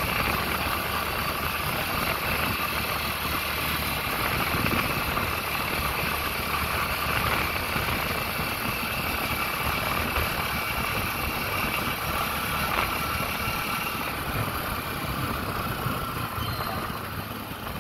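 Steady running noise of a motor vehicle on the road, engine and road noise blended together, easing off slightly near the end.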